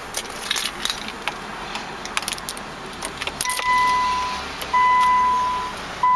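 Car keys jangling and clicking into the ignition lock of a 2004 Land Rover Freelander. About halfway in, the dashboard warning chime starts: a steady electronic tone in long beeps of about a second each, with short gaps, as the ignition is switched on.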